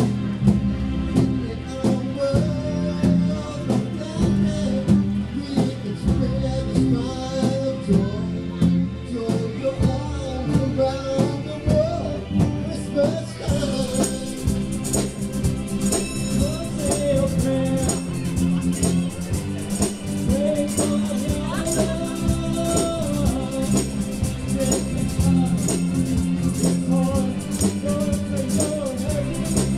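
A choir singing over instrumental accompaniment with a steady beat. About halfway through, a high jingling percussion joins in, like a tambourine.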